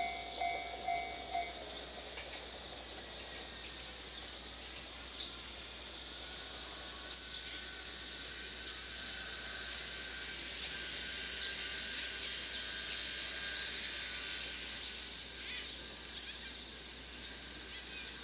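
Japanese level-crossing alarm pulsing its two-tone electronic bell, which stops about a second and a half in. After that, insects chirp in a steady pulsing rhythm, and cars drive over the crossing near the end.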